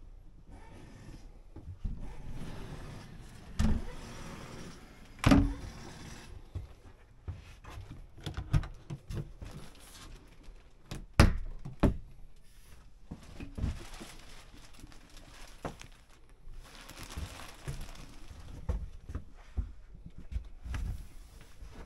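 Doors and fittings inside a motorhome being handled: a series of knocks and thunks, the loudest about five and eleven seconds in, between stretches of soft shuffling and handling noise.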